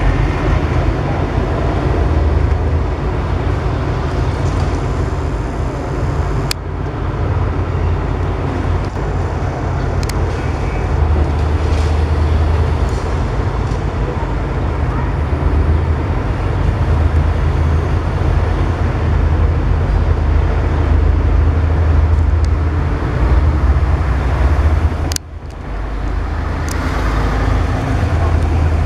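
Steady low engine rumble mixed with street traffic noise, broken by a few sharp clicks.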